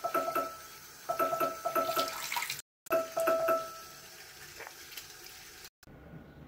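Water running from a tap into a sink and splashing over a toothbrush being rinsed, with a ringing tone in the water noise that comes and goes in short spells. The water sound breaks off briefly twice and stops near the end, leaving a quieter background hum.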